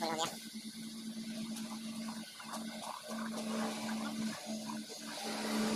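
Fuel dispenser pumping diesel through the nozzle into a car's tank: a steady motor hum, dipping briefly a few times, over the rush of the flowing fuel.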